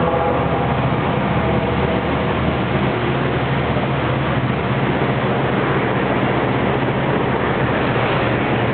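EMD 645 diesel engines of a freight locomotive lashup (SD40T-2s, an SD45-2 and a GP38-2) running at full throttle in notch 8: a steady, loud, low engine drone mixed with rolling train noise.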